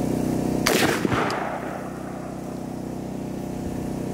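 A single 5.56 rifle shot with M855A1 ammunition about a second in, followed by a short echo, over a steady low hum.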